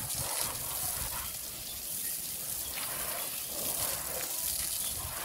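Steady hiss of a strong jet of water from a garden hose spraying onto an elephant's back and splashing down.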